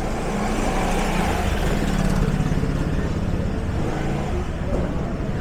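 A motor vehicle's engine passing close by, growing louder to a peak about two seconds in and then easing off.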